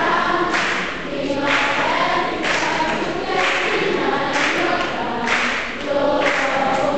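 A choir of many voices singing together, holding long notes in several parts, with a short hissing accent about once a second.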